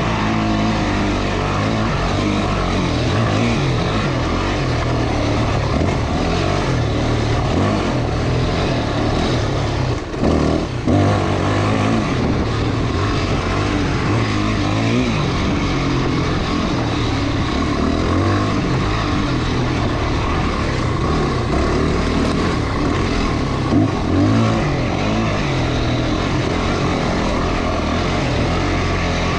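Motorcycle engine running steadily on a dirt trail ride, its pitch drifting up and down with the throttle, over a constant rush of noise. About ten seconds in the sound briefly drops and then jolts.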